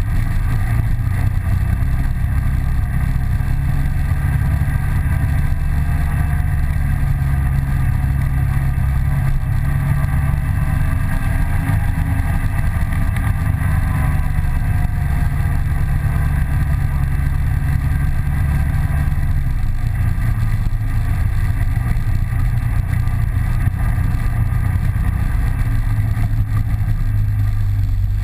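Polaris 800 twin engine running steadily as the vehicle travels along the trail, its pitch easing up and back down through the middle and the drone shifting lower about two-thirds of the way in.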